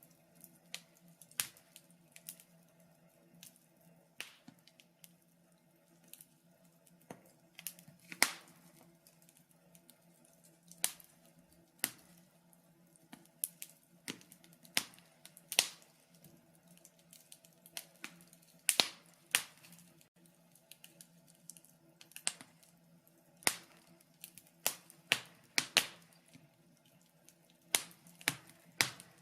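Wood fire crackling: irregular sharp pops and snaps, about one or two a second, some much louder than others, over a faint steady hum.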